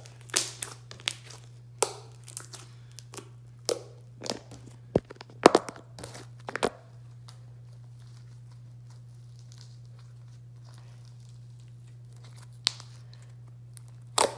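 Slime squished and stretched by hand, giving a run of crackling pops and clicks for about the first seven seconds, then a few more pops near the end. A steady low hum runs underneath.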